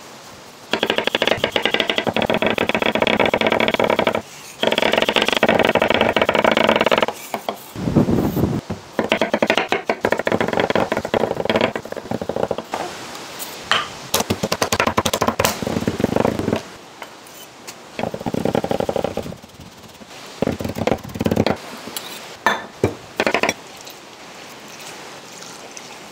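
Chef's knife chopping rapidly on a wooden butcher-block cutting board, in several bursts of fast strokes with short pauses between.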